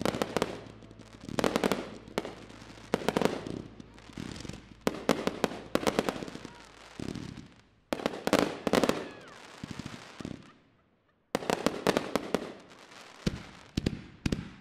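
Fireworks finale: volleys of sharp bangs from shells bursting overhead, in clusters about a second apart. Near silence for about a second, ten seconds in, then a dense run of bangs starts again.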